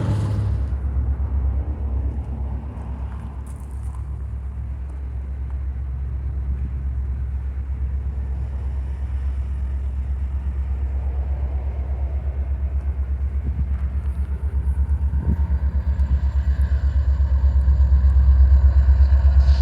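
Diesel train rumbling past, a low, steady pulsing rumble that grows louder near the end.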